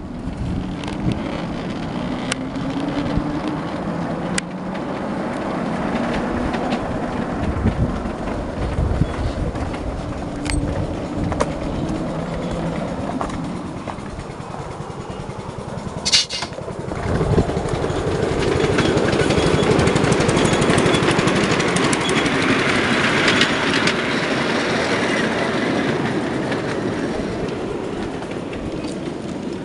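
Ride-on miniature railway train running along the track, a small locomotive hauling wagons with a continuous rumble of wheels on rail. A sharp knock comes about 16 seconds in, and the rumble grows louder soon after, easing again toward the end.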